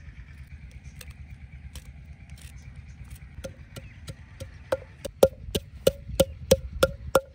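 Wooden pestle pounding green chillies in a wooden mortar to make chilli paste. A few scattered knocks come first; then, about three seconds in, the pounding settles into a steady run of knocks about three a second that grows louder.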